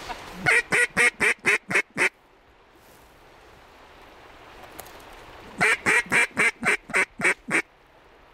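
Two runs of loud mallard quacks in a hen's calling cadence, each of about eight to ten quacks at roughly five a second. The second run starts about five and a half seconds in.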